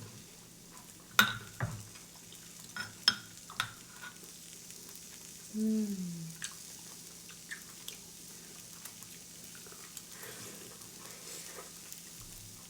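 Korean barbecue meat sizzling steadily on a portable tabletop pan. Several sharp clicks of utensils against dishes come in the first few seconds, and a short falling hum of a voice comes about six seconds in.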